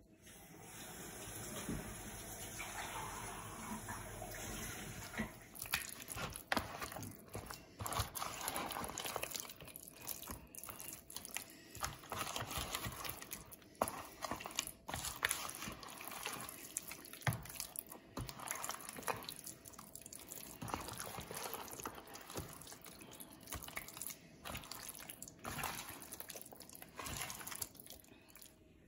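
Wet squelching and clicking of raw chicken pieces being mixed by hand in a thick spice marinade, irregular and uneven. For about the first five seconds a steady hiss like running tap water sits under it.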